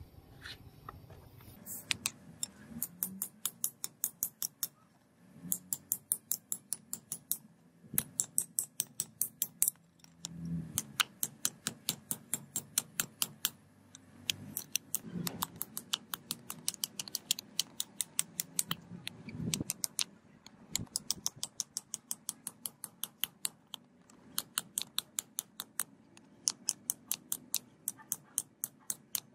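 Hand hammer striking red-hot steel from a bearing ring on a steel block anvil: sharp metallic blows, about five or six a second, in runs of one to two seconds with short pauses between.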